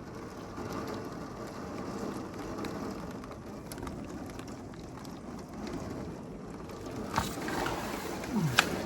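Heavy rain pouring steadily, with a few sharp knocks near the end.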